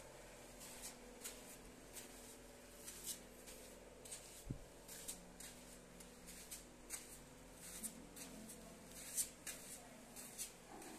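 Quiet footsteps scuffing on a concrete cave floor and steps, irregular, about one or two a second, over a faint steady hum.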